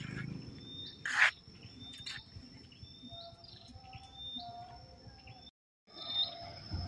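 Small birds chirping, short rising chirps repeated about once a second, over a steady high-pitched insect drone. A brief rustle comes about a second in.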